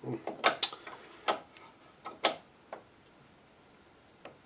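Irregular sharp clicks and taps of a hand tool working the laser adjustment on a Ryobi TS1345L miter saw's blade housing, as the laser line is being set to match the cut. Most come in the first three seconds, with one last tap near the end.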